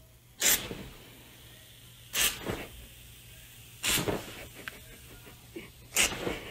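Aerosol foam can sprayed in four short hissing squirts about two seconds apart.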